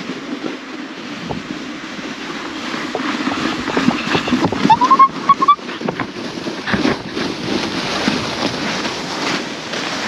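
Crunching and scraping on snow, with wind on the microphone. A brief squeaky rising tone comes about five seconds in.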